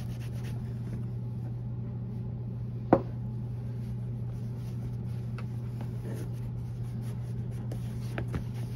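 Cotton rag rubbing and wiping over a leather shoe upper, applying solvent to strip the surface colour, faint over a steady low hum. One sharp knock about three seconds in is the loudest sound.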